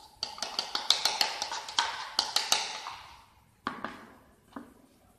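Rapid tapping on an upturned plastic bowl, knocking out the last of the moist green moulding sand onto paper, then a few separate knocks as the bowl is put down on the bench.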